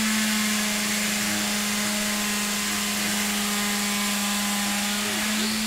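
A small motor running steadily at one constant high pitch, with a hiss over it.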